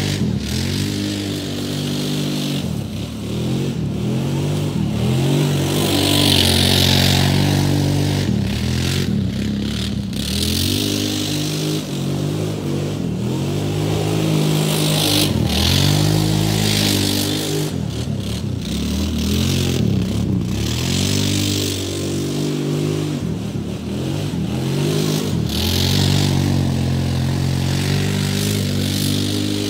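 Kawasaki Brute Force 750 ATV's V-twin engine revving up and down over and over as the quad spins donuts in mud, its pitch rising and falling every few seconds. Recurring bursts of hiss come as the spinning tyres throw mud.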